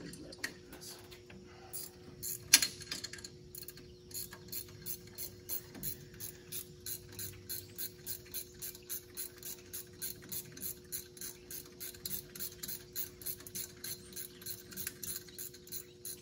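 Ratchet wrench clicking in quick, even strokes, about four clicks a second, as a half-inch bolt on the back of the air-conditioning compressor is turned out. A single sharp clack comes a few seconds before the run of clicks, and a faint steady hum sits underneath.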